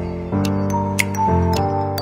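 Background music: sustained synth chords that change every second or so, over a light clicking beat.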